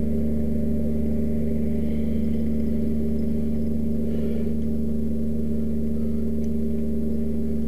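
A steady low hum made of several fixed tones, unchanging in pitch and level.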